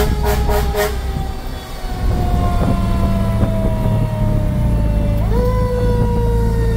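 A fire engine's air horn sounds in quick repeated blasts during the first second, heard from inside the cab. Under it a siren wails, its pitch sliding slowly down, then pulled back up sharply about five seconds in and falling again. The truck's engine rumbles steadily beneath.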